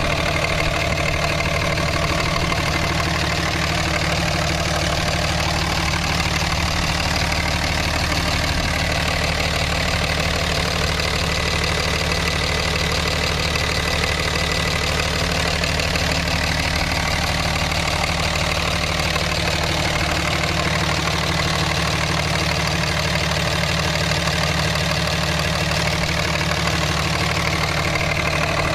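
2005 Dodge Ram 2500 pickup engine idling steadily, heard up close with the hood open.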